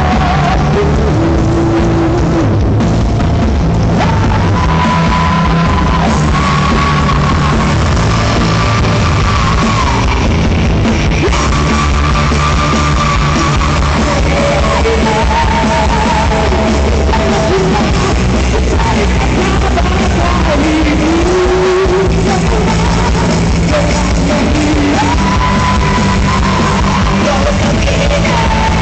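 Indie rock band playing a song live, loud and dense, with a singer's held melodic lines over the band.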